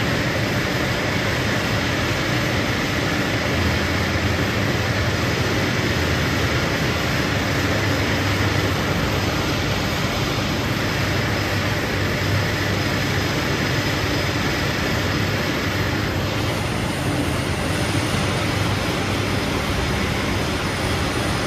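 Tea-processing machinery running on a factory floor: conveyors and leaf-processing machines make a loud, steady mechanical din with a low hum.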